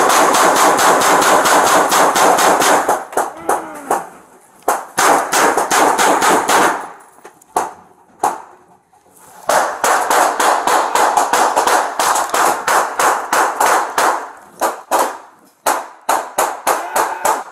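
Heavy gunfire from several guns: many shots in quick succession, several a second, in long volleys broken by short pauses.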